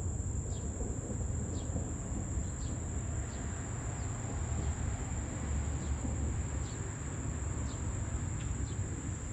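Steady rain falling, with a continuous high-pitched trill of crickets over it and a few short high chirps scattered through.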